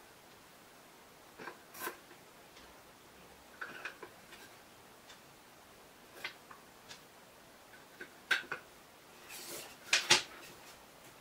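Small metal screws being set into holes in a wooden block and handled on a wooden tabletop: scattered light clicks and taps, with a louder cluster of clicks about ten seconds in.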